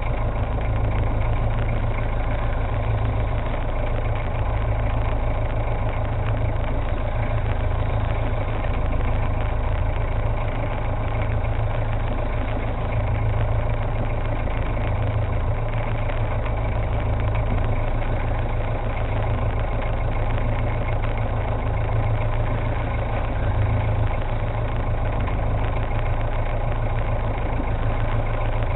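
Fishing boat's engine idling with a steady low hum.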